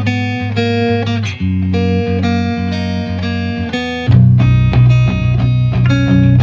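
Background music led by guitar, with plucked chords over a bass line that comes in louder and fuller about four seconds in.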